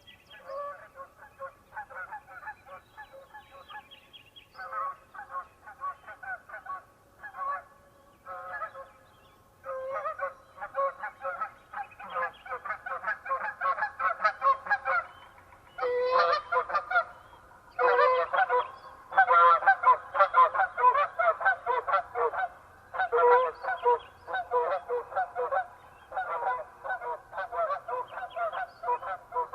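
A flock of geese honking continuously as it flies over, many overlapping calls in quick succession. The honking grows louder and denser from about a third of the way in, is loudest just past the middle, and stays busy to the end.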